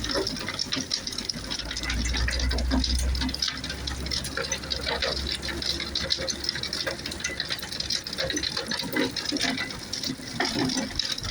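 Mobile star screen working in rain: a dense, steady rattle and crackle of material and raindrops over a low machine rumble that swells about two seconds in.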